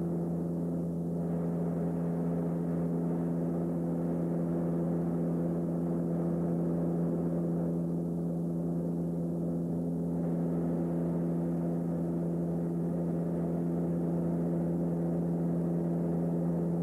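Cabin drone of a Beechcraft King Air 200's twin Pratt & Whitney PT6A turboprops and propellers in level flight: a steady, even hum with several held tones that never change pitch.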